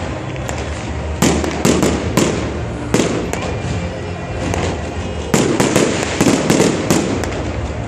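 Aerial fireworks exploding: a string of sharp bangs over a steady crackle, with a lull of about two seconds in the middle before another quick run of bangs.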